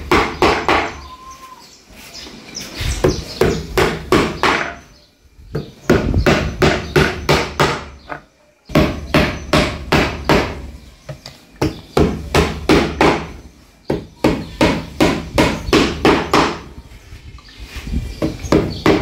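Repeated sharp knocks, about four a second, in runs of several seconds broken by short pauses, like steady hammering.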